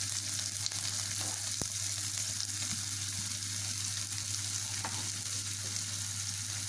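Chopped onion, green chilli and ginger sizzling in hot oil in a kadai: a steady frying hiss, with a low hum underneath and a faint tap about a second and a half in.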